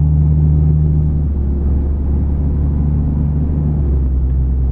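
Lifted Jeep's engine running under throttle while the Jeep spins a donut in snow, heard from inside the cab: a steady low drone whose note steps down a little about a second in and again near the end.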